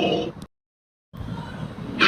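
Dinosaur sound effects: a pitched, many-toned creature call ends and cuts off about half a second in. After about half a second of dead silence, the next effect starts as a quieter low rumble.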